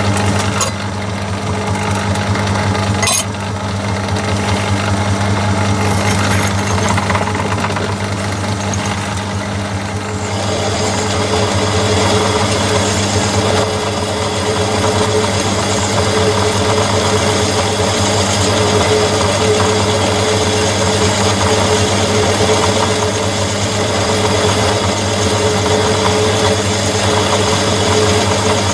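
Myford lathe running steadily, its motor and drive giving a constant hum, with a sharp click about three seconds in. From about ten seconds in, a drill fed from the tailstock cuts into the end of the spinning soft steel MT2 arbor, adding a denser cutting noise and a steady drone.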